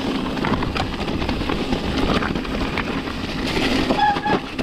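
Mountain bike descending a muddy, rocky forest trail at speed: a steady rushing noise of tyres on mud and stones, with many small clatters from the bike. A brief squeal comes about four seconds in.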